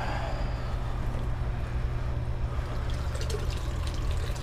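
New sump pump running with a steady low hum while water trickles and pours weakly from its discharge. The flow is poor, which the owner guesses comes from too many elbows in the discharge line.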